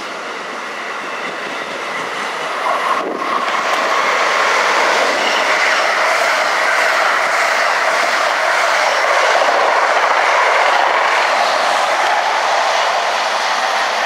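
NJ Transit bi-level passenger train passing close by, its wheels rumbling and clattering over the rail joints. It gets louder about three seconds in, stays loud, and eases off near the end.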